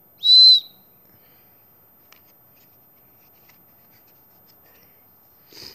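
A tiny survival whistle blown once: one short, high-pitched blast about half a second long, right at the start. Faint handling clicks follow.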